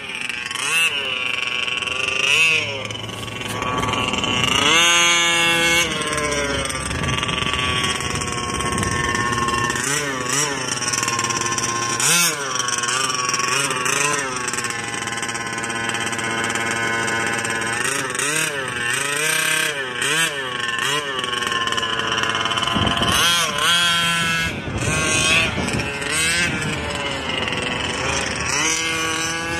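Scott Finlay 34cc reed-case two-stroke engine of a Losi 5B 1/5-scale gas RC buggy, revving up and down over and over as the buggy is driven, its pitch rising and falling.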